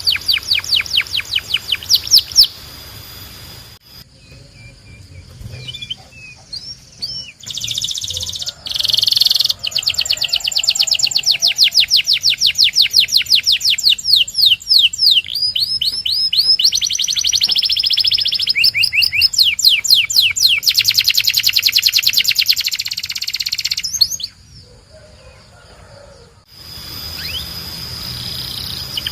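Domestic canary singing: long rolling trills of rapidly repeated notes, changing from one trill to the next, with two short lulls, about three seconds in and near the end.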